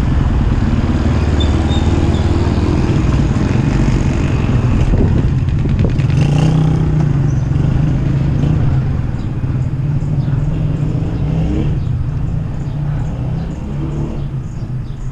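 Road traffic: a motor vehicle engine, likely a motorcycle, running close by with a low steady rumble. The engine sound is strongest through the middle and eases off after about nine seconds.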